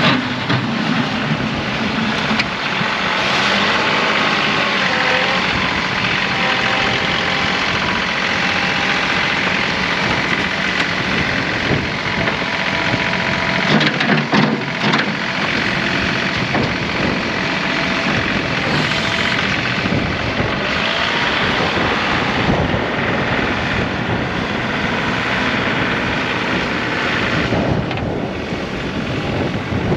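Compact diesel tractor running steadily with a dense mechanical rumble and clatter, typical of a John Deere 2038R working through snow.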